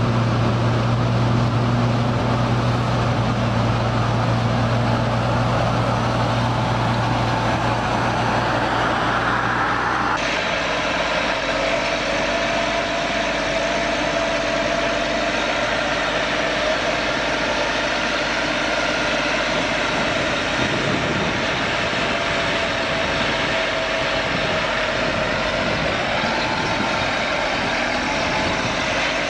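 Heavy farm machinery engines running steadily: first a low, steady drone, then about ten seconds in an abrupt switch to a different engine sound with a higher whine.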